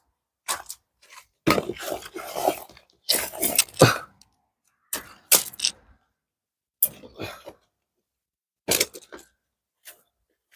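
Firewood being split and handled: a string of irregular sharp knocks, cracks and clattering wood, coming in about six separate bursts.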